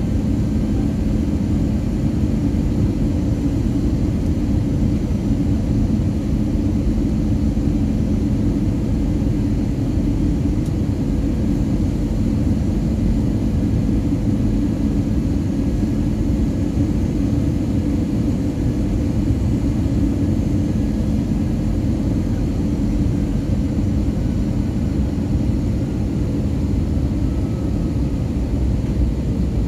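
Steady in-flight cabin noise of an Airbus A320 heard at a window seat over the wing: a deep, even rumble of engine and airflow, with a low steady hum that weakens about a third of the way through.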